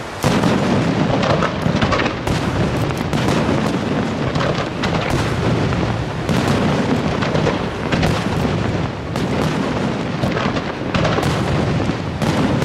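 Aerial firework shells bursting in quick succession, several booms a second overlapping into a continuous rumble, with a loud burst just after the start.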